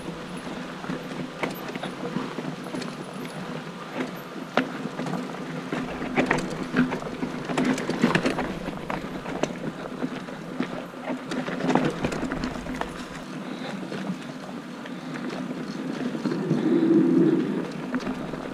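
Mountain bike riding over a dirt trail: a steady rolling noise from the tyres, with irregular clicks and rattles from the bike over bumps, busiest around the middle.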